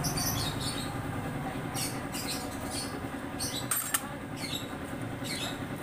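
A string of short, high-pitched chirps in small clusters about once a second, with a single sharp click about four seconds in, over a low steady hum.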